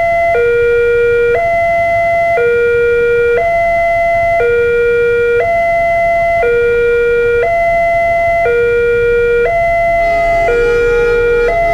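Railway level-crossing warning alarm from the loudspeaker on the crossbuck post: an electronic two-tone signal alternating between a lower and a higher note, each held about a second, sounding while the barriers are down for an approaching train. Near the end a low rumble and further tones join in.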